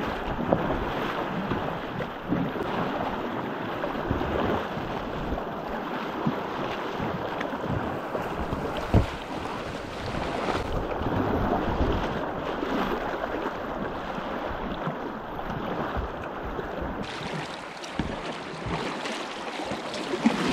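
River water rushing and splashing around a kayak's bow as it moves through a riffle, with a sharp knock or splash about nine seconds in.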